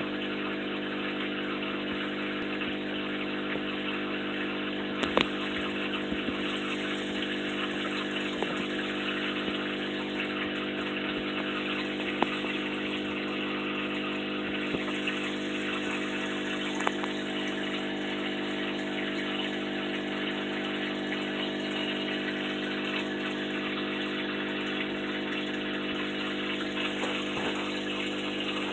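Aquarium pump humming steadily over a constant rush of water, with a few sharp clicks.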